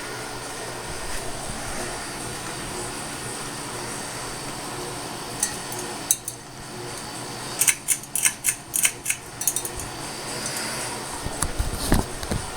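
52-inch CEI GE Vent ceiling fan running with a steady motor buzz. A quick series of sharp clicks and rattles comes about halfway through, and a low thump near the end.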